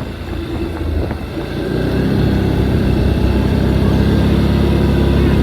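Small gasoline engine running, uneven for the first couple of seconds and then settling into a steady, even run.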